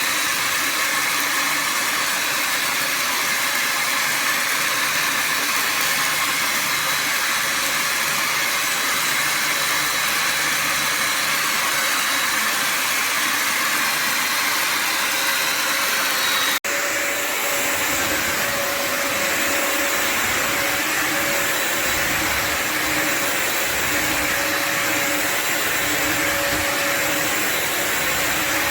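Bissell Symphony Pet steam mop and vacuum running steadily with its vacuum motor going. A momentary break comes a little over halfway through, after which a steady whine sits over the noise.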